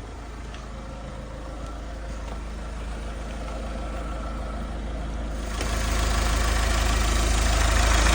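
Mahindra Scorpio-N's 2.2-litre four-cylinder diesel engine idling steadily under an open bonnet, getting louder as the microphone comes closer, with a jump about five and a half seconds in. No tak-tak ticking stands out: the vacuum pump that made it has been replaced.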